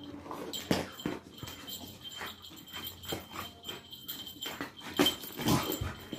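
Labrador puppy growling and snuffling as it worries a soft toy, with scattered clicks and knocks of its claws and the toy on a tiled floor; the loudest strokes come about five seconds in.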